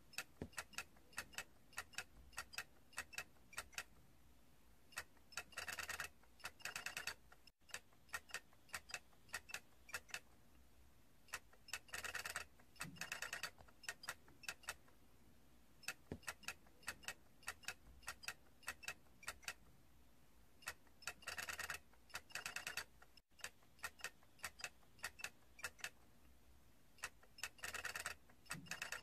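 Faint plastic clicking from a stacked plastic character toy: light irregular ticks, a few a second, broken by short runs of rapid rattling every several seconds.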